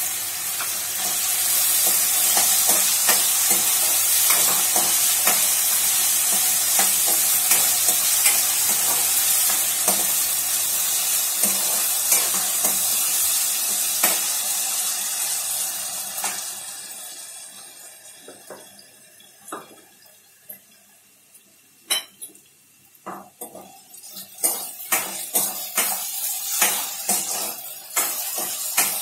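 Diced potatoes and green chillies sizzling in hot oil in a steel kadhai, with a steel ladle scraping and clinking against the pan as they are stirred. The sizzle dies away about two-thirds of the way through, leaving scattered and then quicker clinks and scrapes of the ladle on the pan.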